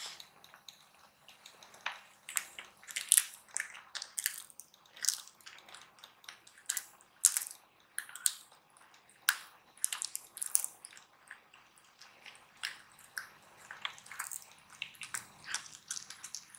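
Bengal kitten crunching and chewing hard dried cod: sharp, irregular crunches, a few a second.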